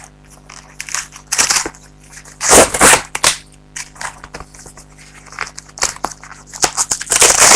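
Cardboard package being torn open by hand: irregular ripping, crackling and crumpling of cardboard and packing tape, loudest about two and a half seconds in and again near the end.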